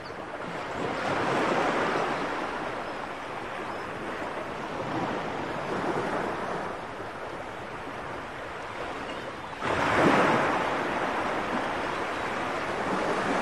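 Surf: a rushing wash of waves that swells and ebbs every four seconds or so, with the strongest wave coming in suddenly near the ten-second mark.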